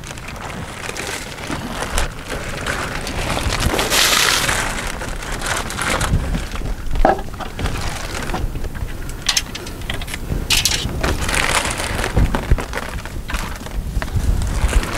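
Plastic poly tarp crinkling and rustling as it is pulled and bunched up along a roof edge, a dense crackle in uneven surges, loudest about four seconds in and again around ten to eleven seconds.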